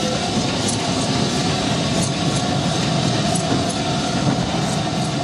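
Bagnall 0-4-0 saddle tank steam locomotive and its train running along the harbourside rails, a steady running noise with faint, irregular light clicks.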